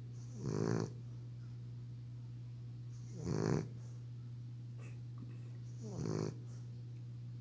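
French bulldog snoring in its sleep: three short snores a little under three seconds apart.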